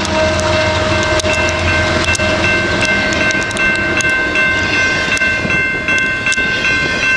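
BNSF intermodal freight train passing at track speed: a steady rumble with sharp wheel clicks, and several steady high tones ringing over it.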